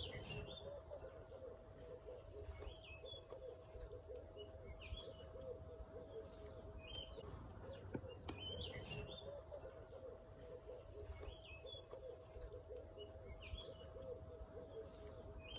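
Faint birdsong: a short, high chirp repeated about every two seconds over a faint, continuous lower background.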